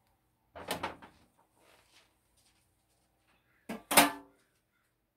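Kitchen utensils knocking on the stovetop: a short clatter about half a second in, then a louder knock with a brief ring near four seconds in.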